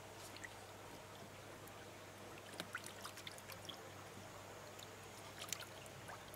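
Faint water sounds: scattered small splashes and drips over a steady low hum, with a cluster of splashes about two and a half seconds in and another near five and a half seconds.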